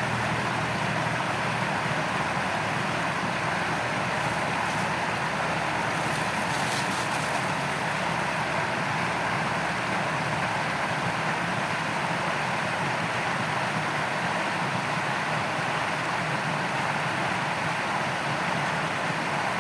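Steady rushing of shallow stream water flowing over stones, an even noise that does not change.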